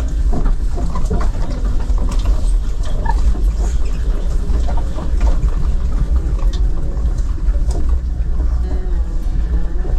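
A car driving on a rough road, heard from inside the cabin: a steady low rumble with frequent rattles, knocks and short squeaks.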